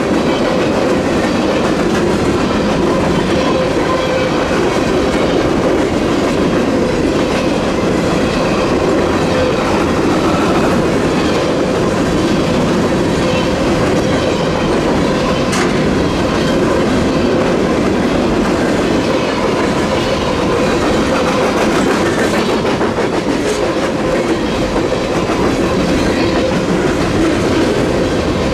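Freight train cars rolling steadily past at close range, steel wheels clacking and ringing on the rails, with a few sharp clanks.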